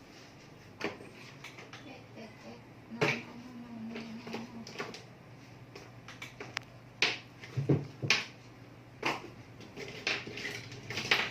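Irregular sharp clicks and knocks, about eight of them spread a second or so apart, of small hard objects being handled.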